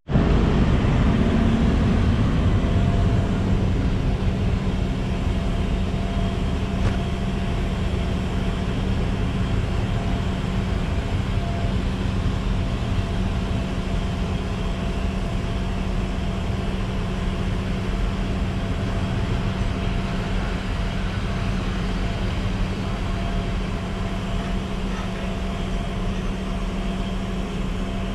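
A PKP Intercity electric locomotive hauling a passenger train slowly past, with the rumble of the carriage wheels rolling on the rails under a steady electrical hum with two held tones. Loudest at the start, it eases gradually as the locomotive draws away.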